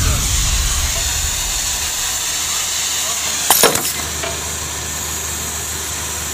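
Steady hiss of a gas torch heating steel pipe for bending, over a low steady engine hum, with a single sharp knock about three and a half seconds in.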